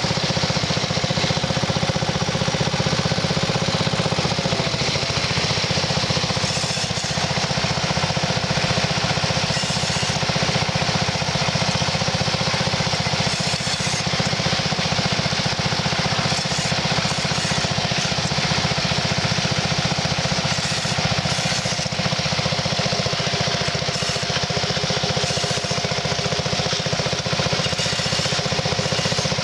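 Unihorse 6-8 walking tractor's small engine running steadily under load while pulling a plough, with one brief dip in pitch about five seconds in.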